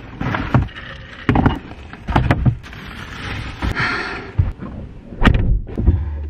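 Someone getting into a car's driver seat: a series of irregular knocks and thumps with rustling of clothes and seat, and a breathy hiss about three to four seconds in.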